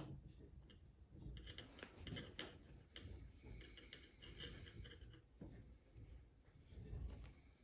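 Faint handling noises of hands working on a laptop during a screen replacement: scattered light clicks and rubbing of small plastic and metal parts.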